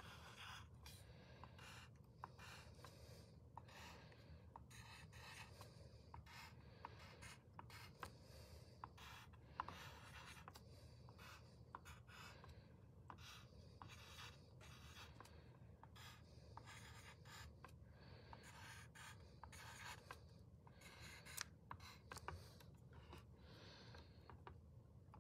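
Wooden pencil writing on paper: faint, short scratching strokes in quick irregular groups as numbers are written, with occasional light ticks of the lead against the sheet.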